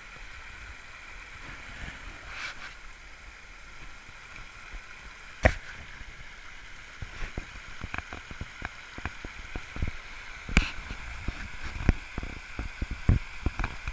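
Steady rush of a small mountain spring waterfall. A sharp knock comes about five seconds in, and many short low thumps follow from about seven seconds on.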